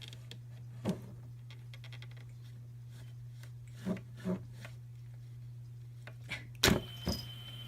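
A handful of short, light knocks and taps, the loudest about two-thirds of the way through, over a steady low hum.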